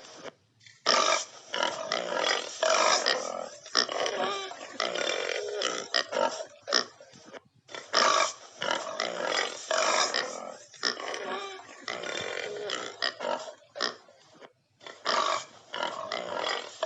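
Animal sound effect: a run of short, harsh calls in quick succession, starting just under a second in, with brief breaks about halfway through and again near the end.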